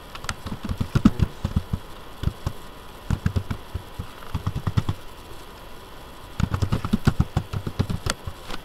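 Computer keyboard being typed on: several quick bursts of key clicks with short pauses between them, the loudest strokes about a second in.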